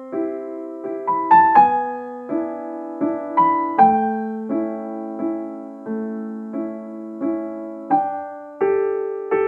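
Background piano music: gentle notes and chords struck at a steady, unhurried pace, about one every 0.7 seconds, each ringing on and fading.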